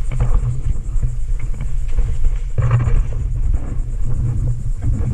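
Low, steady rumble on the microphone with faint rustling, and a brief louder rustle about two and a half seconds in.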